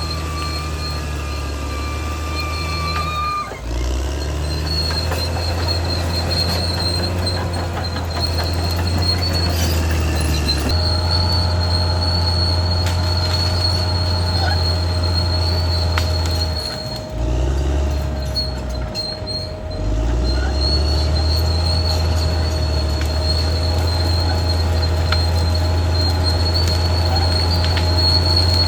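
Caterpillar D6R XL crawler bulldozer working, its diesel engine running steadily with a deep drone that dips briefly twice, over a steady high-pitched squeal of the steel tracks.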